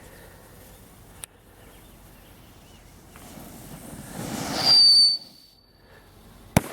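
Crazy King firecracker going off: a rising hiss that turns into a high, steady whistle for about a second, then a single sharp bang near the end.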